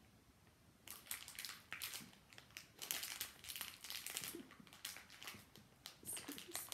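Small foil blind-bag packet crinkling in repeated bursts, starting about a second in, as fingers twist and tug at it trying to tear it open.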